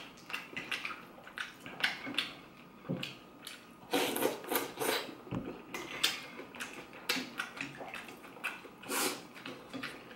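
Slurping and chewing pho noodles and broth: a string of short wet slurps, loudest about four seconds and nine seconds in.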